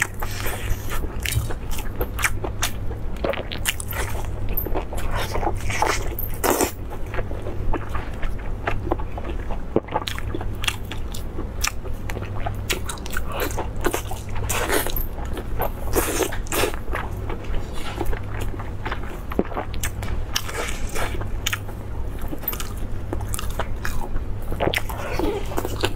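Close-miked biting and chewing of lamb sausage in its intestine casing: a dense run of short wet clicks and snaps, over a steady low hum.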